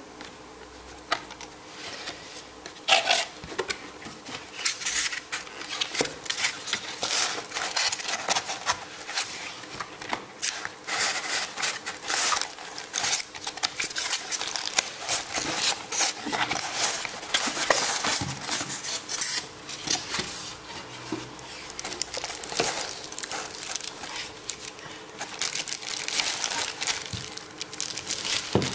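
Speaker packaging being handled during unpacking: plastic bags and wrapping crinkling and rustling in quick, irregular bursts, with a few light knocks.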